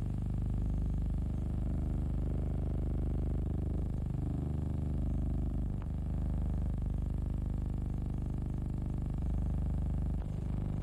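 A steady low hum with many overtones, the noise of an old film soundtrack, with a short click at each splice where the shot changes, about six seconds in and again about ten seconds in.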